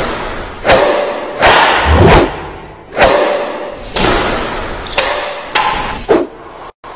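Cinematic title-sequence sound effects: a string of heavy impact hits, about one a second, each followed by a noisy swell that fades away. There is a deep boom about two seconds in and a brief cut to silence just before the end.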